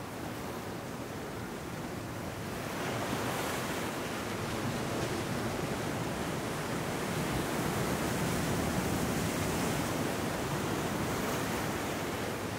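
Ocean surf breaking and washing up over sand and rounded rocks, a steady rushing that swells a few seconds in, is loudest past the middle, and eases a little near the end.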